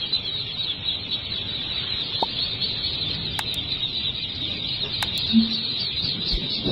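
A dense chorus of hundreds of ducklings peeping all at once, a steady high-pitched mass of overlapping cheeps with no single call standing out.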